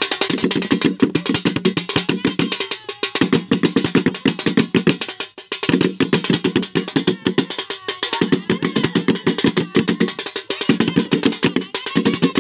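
Improvised drumming in the style of a Sambalpuri dulduli baja: sticks beating a plastic container set in a tyre, steel plates and a plastic jerrycan in a fast, dense rhythm. The drumming comes in phrases with short breaks about every two to three seconds, and a thin wavering melody line sounds above it.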